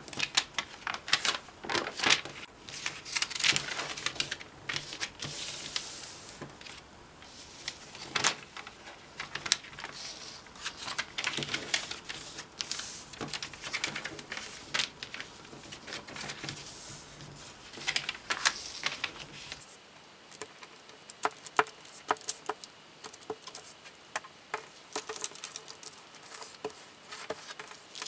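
A large sheet of creased origami paper being handled, unfolded and refolded: irregular rustling and crinkling with sharp crackles and clicks along the creases. From about two-thirds of the way in it turns quieter, with many small ticks as folds are pressed.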